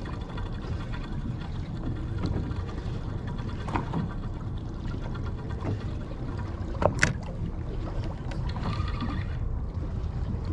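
Wind buffeting the microphone and water against a boat's hull on open sea, a steady low rumble, with a single sharp click about seven seconds in.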